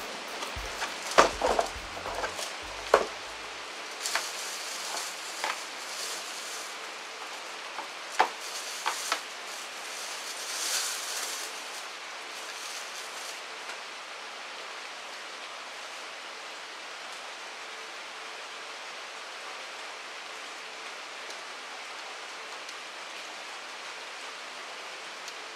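Plastic wrapping crinkling and rustling as a power drill is unwrapped and handled, with several sharp knocks and clicks in the first few seconds. From about halfway on, only a steady hiss remains.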